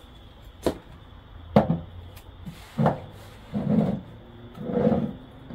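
Tableware being handled on a wooden tabletop: three sharp knocks and clatter, then two softer, duller knocks, as a baking dish and serving utensils are set down and moved.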